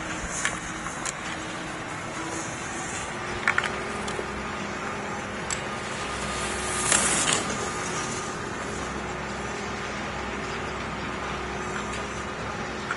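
Ski edges scraping on hard-packed race snow as a giant slalom racer carves through the gates: a brief loud hiss about seven seconds in, over a steady outdoor background with a faint hum and a few light clicks.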